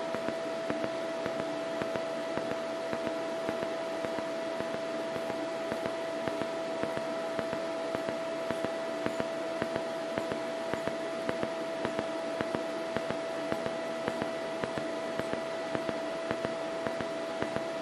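DC TIG welding arc from a YesWelder TIG 200P in pulse mode, running an autogenous bead: a steady hissing buzz with a steady tone through it, and small regular pulses, about two a second, as the current switches between peak and background.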